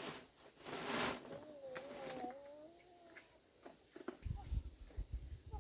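Steady high-pitched chirring of insects, such as crickets, with a brief rustle about a second in and a run of low thuds near the end.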